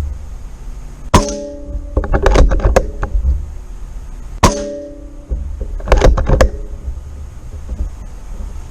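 Two shots from a .25 calibre Benjamin Kratos PCP air rifle, about three seconds apart. Each is a sharp crack with a short ring, followed about a second later by a quick burst of metallic clattering.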